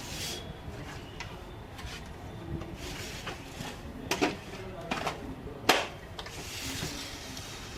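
Clicks and knocks of plastic parts being handled on an HP LaserJet 1020 printer, with two sharper knocks, one just past four seconds in and one near six seconds, followed by a short rustle.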